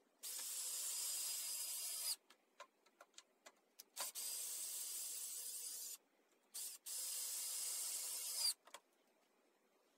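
Cordless drill driving screws into a wooden beam: the motor runs in three steady pulls of about two seconds each, with a short blip just before the last and small clicks between them.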